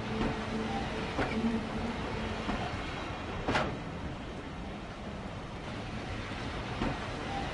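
Steam train running on the rails: a steady rolling rumble broken by a few sharp, irregular clacks, the loudest about three and a half seconds in.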